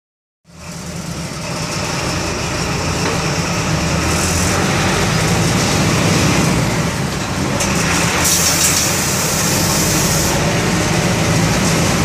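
MWM 4.12 TCE four-cylinder inline turbodiesel of an Agrale MA 8.5 bus chassis, running steadily. It comes in about half a second in, with bursts of high hiss about four seconds in and again from about eight to ten seconds.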